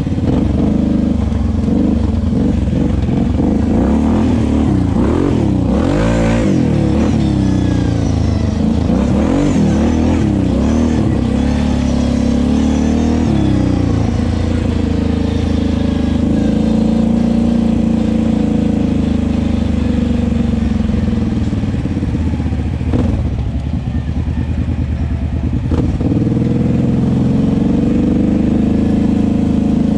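Kawasaki KFX 700 ATV's V-twin engine running under load, revving up and down with the throttle through the first half, then holding a steadier pitch, with a brief drop in revs about two-thirds in.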